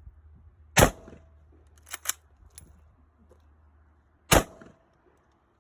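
Two gunshots about three and a half seconds apart, with a few lighter clicks between them.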